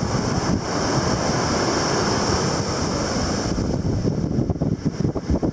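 Wind buffeting the microphone in gusts, over the steady hiss of ocean surf; the high surf hiss drops away about three and a half seconds in, leaving mostly wind rumble.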